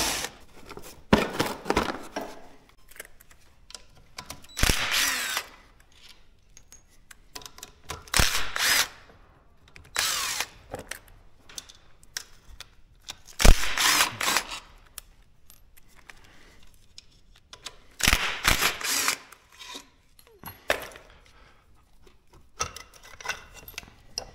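Handheld power drill/driver run in about eight short bursts of roughly a second each, unfastening bolts to get at the quad's stator.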